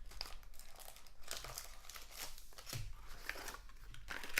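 Plastic wrapping crinkling and tearing as a pack of trading cards is opened by hand, in irregular short crackles.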